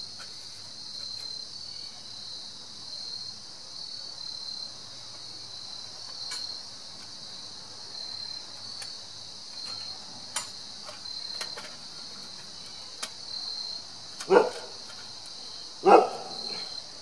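Crickets chirping in a steady, regular pulse, with a few light clicks as the metal parts of a small folding wood stove are fitted together. Near the end a dog barks twice, about a second and a half apart.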